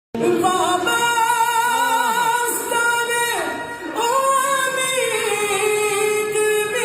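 A qari's melodic Islamic recitation in a high, clear voice: long held notes with wavering ornaments, and a short break a little past the middle before the next phrase.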